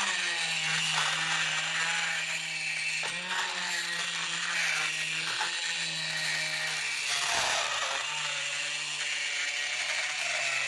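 Cordless die grinder running a carbide burr, grinding out a hole in a solid steel bar: a steady high motor whine over a hiss of cutting. The motor speed dips briefly a few times as the burr bites.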